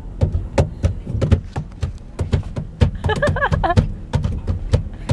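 A man beating out a quick rhythm of sharp claps and low thumps, about four or five beats a second, with a short sung vocal phrase about three seconds in.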